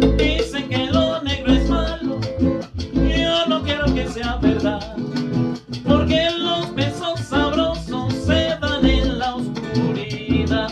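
A man singing a Latin romantic song while accompanying himself on a classical guitar, strummed in a steady rhythm.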